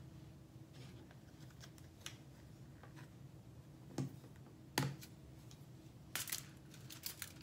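Faint clicks and taps of a highlighter's packaging being opened and handled, with sharper clicks about four and five seconds in and a quick cluster of clicks near six seconds, over a low steady hum.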